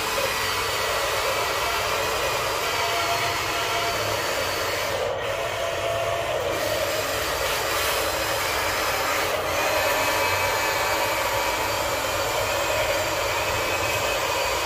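Electric motors of a remote-control toy excavator whirring steadily as it tracks through sand and works its arm, the whine wavering slightly in pitch.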